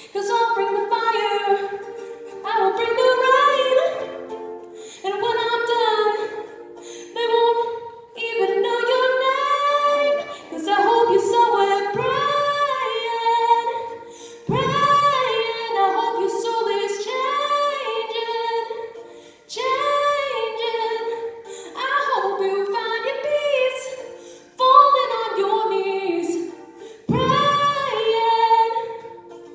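A woman singing solo with ukulele accompaniment, in sung phrases of a few seconds each with brief breaks between them.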